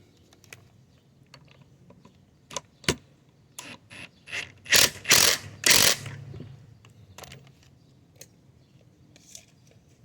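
A wrench driving 1/2-inch lag screws into hard cedar in a few short bursts of ratcheting, mechanical rattling, the loudest three bunched about five to six seconds in, with a few sharp clicks just before.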